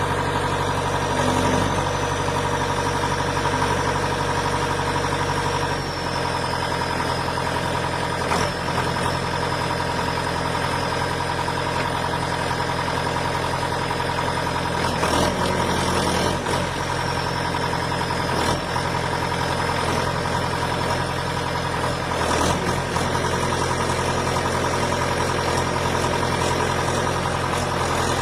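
Engine of a heavy tree-cutting machine running steadily, its note shifting slightly about six seconds in, with a high whine above it and a few short knocks.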